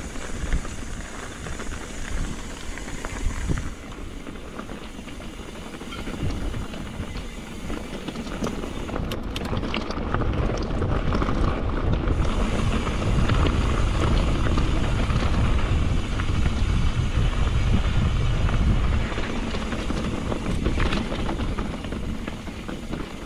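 Wind rushing over the microphone of a mountain bike riding along a dirt and rock singletrack, with small clicks and rattles from the bike and trail. The low wind rumble builds about halfway through, then eases off near the end.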